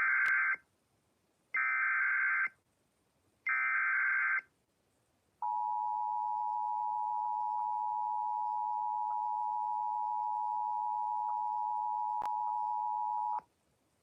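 Emergency Alert System SAME header: three short bursts of warbling digital data tones, each about a second long, followed by the two-tone EAS attention signal (853 and 960 Hz together) held steady for about eight seconds before cutting off. This is the start of an EAS activation for a severe thunderstorm warning.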